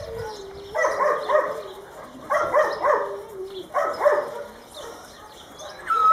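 Excited dogs whining and yelping: a long, wavering whine with short runs of high yelps about a second in, again around the middle, and near the end.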